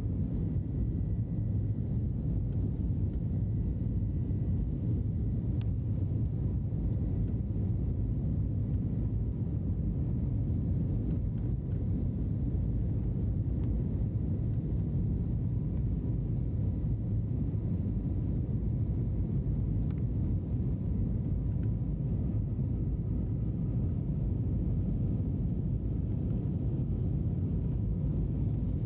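Airbus A321neo cabin noise at a window seat during the climb after takeoff: a steady low rumble of the jet engines and airflow, with faint steady tones above it.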